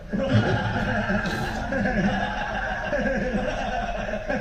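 Several people laughing loudly together, the laughter breaking out suddenly and overlapping.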